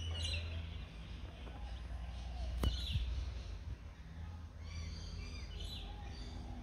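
Low steady hum of an automatic bi-fold gate's motor as one half of the gate folds open, with birds chirping and one sharp click about two and a half seconds in.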